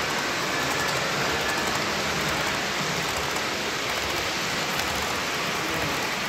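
HO-scale model train rolling along the layout track: a steady rushing noise of metal wheels on rail and the locomotive's motor.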